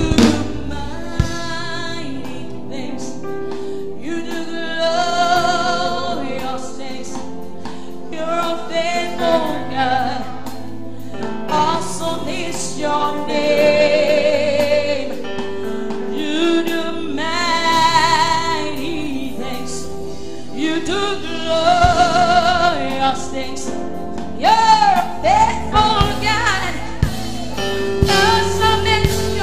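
Live gospel worship singing: women's voices holding long, wavering notes, over a steady held chord.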